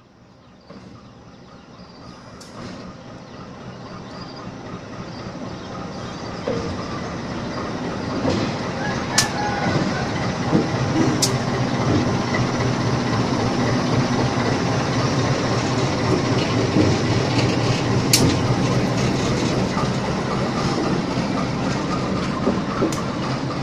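A CC 201 diesel-electric locomotive's engine drones, growing steadily louder over about ten seconds as the locomotive comes close, then holding loud. A few sharp clicks sound over it.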